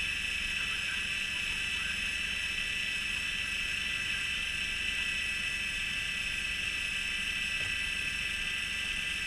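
Fishing boat's engine running steadily: a constant low drone with a steady high-pitched whine over it.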